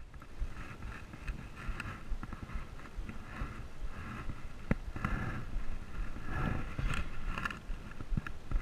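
Rustling and knocking as a motocross helmet and the action camera on it are handled and the helmet is pulled on, with a few sharp clicks, over a low wind rumble on the microphone. A faint high pulsing buzz comes and goes in the background.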